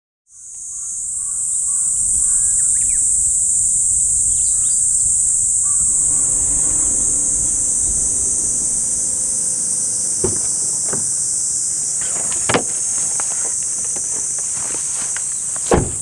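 Loud, steady high-pitched chorus of summer insects, fading in at the start. A few sharp knocks fall in the second half, the loudest near the end.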